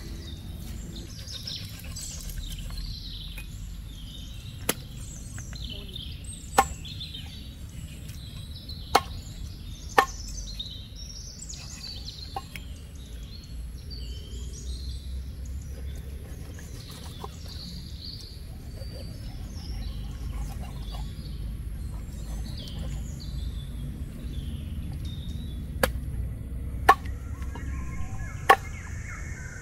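Cleaver chopping through a whole fish onto a round wooden chopping board: seven sharp knocks in two spells, four a few seconds in and three near the end. Birds chirp throughout.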